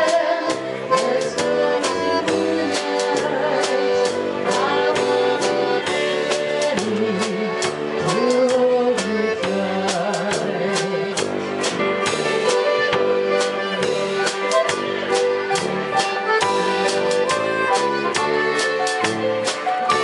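A live concertina band playing a tune with concertina, electronic keyboard and drum kit over a steady drum beat, and a woman singing into the microphone.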